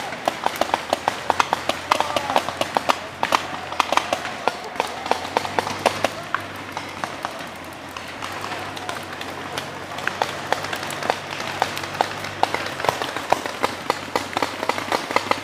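Paintball markers firing in rapid, irregular volleys during a woodland game, a steady crackle of shots that thins out for a few seconds near the middle and then picks up again.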